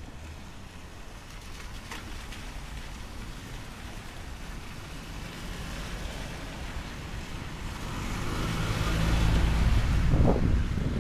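Motor vehicle engine coming closer and passing, growing louder from about eight seconds in and peaking near the end, over steady outdoor wind noise.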